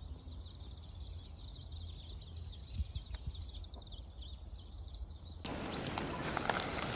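Small birds chirping in quick strings of high notes over a low outdoor rumble; about five and a half seconds in, a louder rushing noise comes up.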